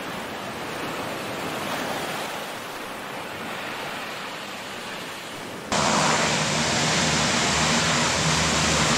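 Rushing, splashing water as a steady hiss. About six seconds in, a louder steady hovercraft engine-and-fan drone with a low hum cuts in suddenly.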